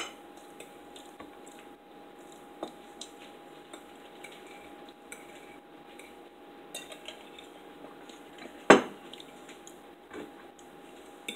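Metal forks clinking and scraping on ceramic dinner plates, a scatter of small ticks with one much louder clack about nine seconds in. A faint steady hum runs underneath.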